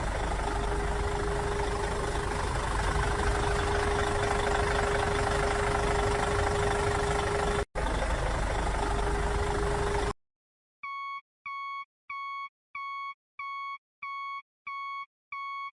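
A steady, noisy engine-like running sound with a constant hum, broken once briefly, that cuts off suddenly about ten seconds in. It is followed by eight evenly spaced electronic beeps, each about half a second long, like a reversing beeper.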